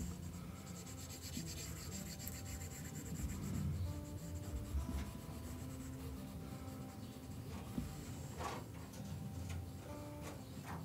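Faint scratching of an Apple Pencil tip stroking across an iPad's glass screen while erasing, with a couple of slightly clearer strokes near the end.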